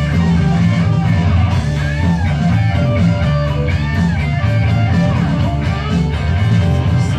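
Rock song with guitars playing.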